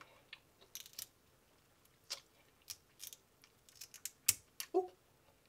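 Snow crab leg shell cracking and snapping as it is broken open by hand to get at the meat: a series of sharp, separate clicks, the loudest a little past four seconds in. A brief hum of voice follows just after it.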